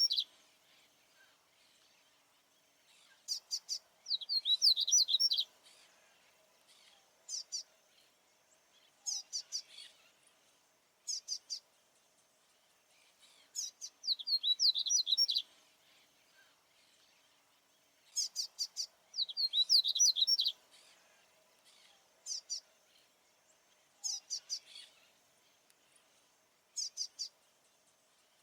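Papa-capim baianinho, a seedeater, singing: short phrases of quick, high, twittering notes, each lasting a second or two, repeated about every two to four seconds with brief pauses between.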